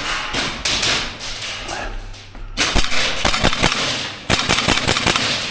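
Airsoft guns firing in rapid strings of sharp cracks, scattered at first and then fast runs of shots from about halfway through.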